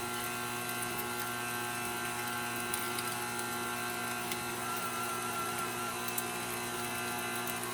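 KitchenAid stand mixer running its food grinder attachment while it grinds raw meat: a steady motor hum and whine that holds an even pitch.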